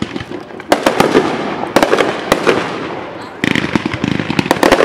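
Aerial fireworks going off: many sharp bangs and crackles in quick succession, growing louder about a second in and again near the end.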